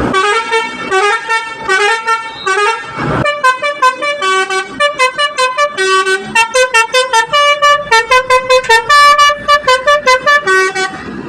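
Basuri telolet bus horn, a multi-tone musical air horn, playing a tune in short stepped notes. After about three seconds the notes come faster, several a second, and the tune stops just before the end.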